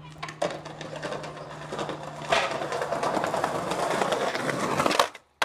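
Skateboard wheels rolling over paving slabs, getting louder as the board comes closer, with a run of clicks as the wheels cross the slab joints. It cuts off abruptly near the end.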